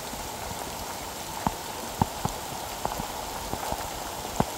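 Rain falling steadily, with a handful of sharp single drop hits close by.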